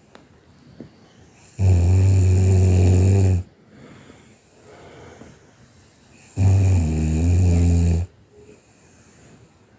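A sleeping person snoring: two loud, low buzzing snores, each nearly two seconds long and about five seconds apart, with faint breathing between them.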